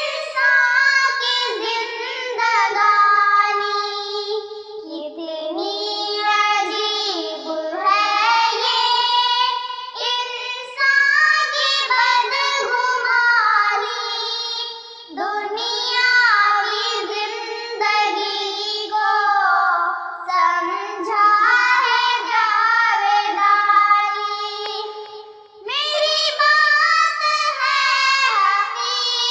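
Two young girls singing an Urdu nazm together in unison, unaccompanied, in long melodic phrases with brief pauses for breath between them.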